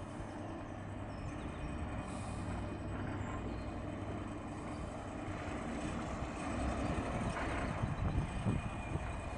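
Harbour workboat's engine running steadily with a low hum while plough dredging, with an irregular low rumble growing louder in the second half.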